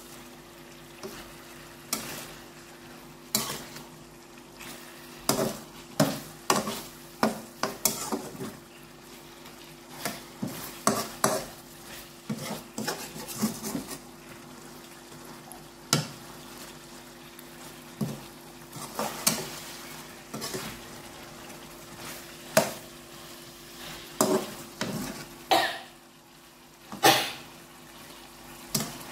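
Slotted metal spatula scraping and knocking against a wok as fish in thick sauce is stirred and turned, in irregular strokes every second or so, over a steady sizzle of frying.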